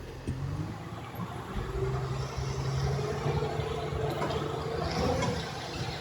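Ready-mix concrete truck's diesel engine running steadily, its hum building over the first couple of seconds and then holding even.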